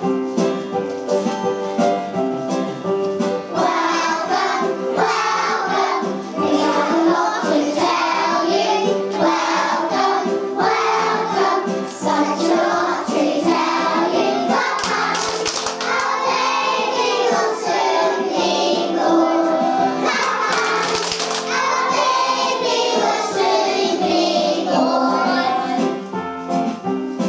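Children singing a Christmas carol together over a steady instrumental backing.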